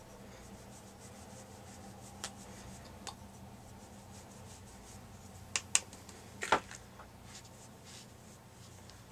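Faint rubbing of a powder brush sweeping bronzer over the cheek, with a few soft clicks and taps; the loudest is a short tap about six and a half seconds in. A low steady hum sits under it all.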